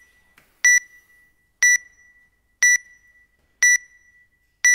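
Workout countdown timer beeping once a second: five short, identical high beeps counting down the last seconds before the start.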